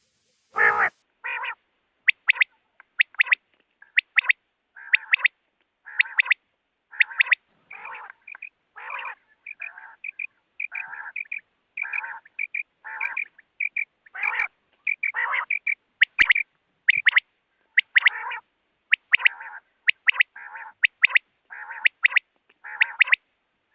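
Quail calling: short, sharp double notes repeated about once a second, over and over.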